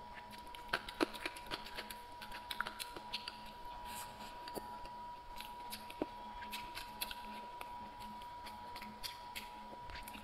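Close-miked chewing of red-braised pork belly: a scatter of soft, wet mouth clicks and smacks, a few of them sharper, over a faint steady high hum.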